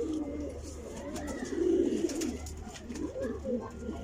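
Domestic pigeons cooing, several low warbling coos one after another and overlapping.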